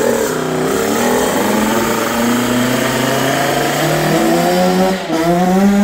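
Kawasaki KX65 dirt bike's 65cc two-stroke single-cylinder engine revving hard as the bike pulls away, its pitch climbing, with a brief dip about five seconds in before it climbs again.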